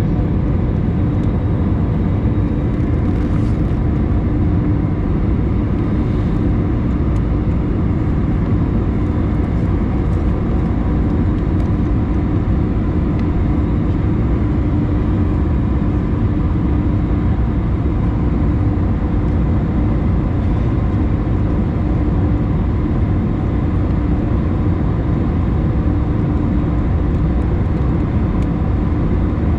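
Steady engine and airflow noise inside the main cabin of an Airbus A321 climbing out after takeoff, a constant roar with a low hum held throughout.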